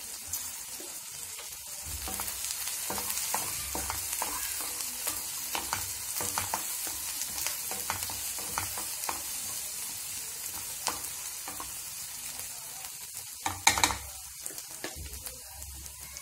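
Onions, peanuts, dal and curry leaves sizzling in hot oil in a nonstick pan, with a spatula stirring and scraping through them in short strokes. Two sharp knocks stand out near the end.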